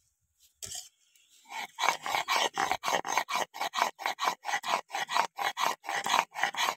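A stone muller rubbed rapidly back and forth on a sil grinding slab, grinding cumin into a wet paste: an even rasping rhythm of about four to five strokes a second, starting about a second and a half in.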